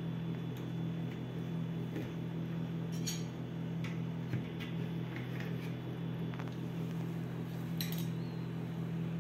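A metal cake server and spoon scrape and clink against a serving tray and a small glass plate as a slice of gelatin is cut and served, giving a few light clinks spread through, over a steady low hum.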